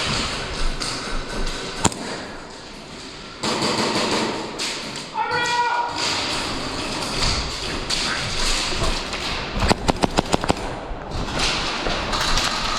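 Airsoft gun firing a quick burst of about eight shots, about ten a second, near the end, amid scattered thuds and taps of movement.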